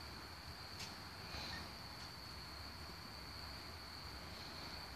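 Steady high-pitched insect chorus trilling without a break, with a single faint click just under a second in.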